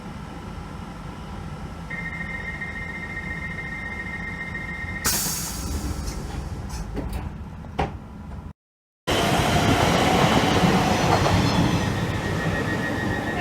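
Train door warning tone sounding for about three seconds, then the doors closing with a sudden burst of air. After a cut, a train's louder running noise follows, with another warning tone near the end.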